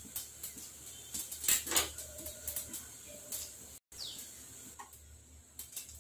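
Mustard seeds popping in a covered pan: scattered small clicks and pops, the loudest a little under two seconds in. A bird gives a short falling chirp about four seconds in.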